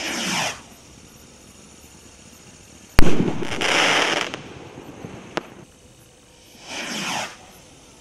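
Aerial fireworks from a Gangsters Coffin crate: a launch whoosh that falls in pitch, then a loud bang about three seconds in, followed by a crackling hiss. A smaller crack comes a couple of seconds later, and another falling whoosh of a launch comes near the end.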